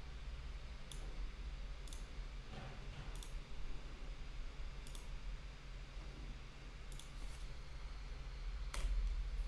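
Computer mouse clicks: about seven short single clicks at uneven intervals, over a faint low hum.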